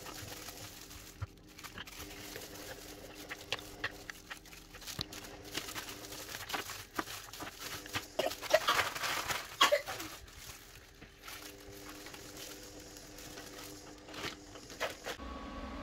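Frozen green paste cubes being pushed out of silicone ice-cube trays onto a wooden chopping board, then scooped into a plastic zip-lock bag: scattered clicks and knocks with plastic crinkling, loudest in a burst of rattling and crinkling about halfway through. A faint steady hum runs underneath.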